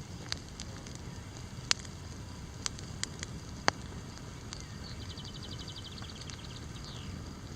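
Campfire burning with a steady low rumble and sharp, irregular crackles and pops. About halfway through a bird gives a short, quick trill of about a dozen high notes.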